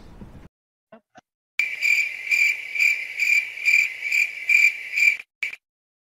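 Cricket-chirp sound effect: an even run of high, pure chirps about two a second, starting about a second and a half in and stopping about five seconds in, with one last short chirp just after, set in dead silence.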